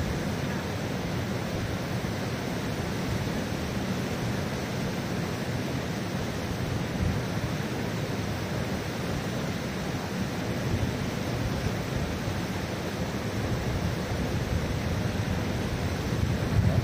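Mountain river rushing over rocks and rapids: a steady, unbroken roar of water.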